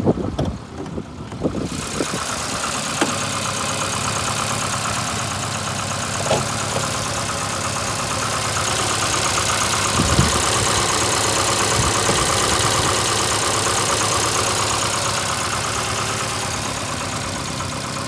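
VAZ-2115 8-valve petrol engine running at idle with a fast regular knock. The owner cannot trace the knock; he reports that the engine misfires cold and started running this way after the head gasket blew on cylinder one. A few handling bumps come in the first two seconds, and the engine gets a little louder in the middle.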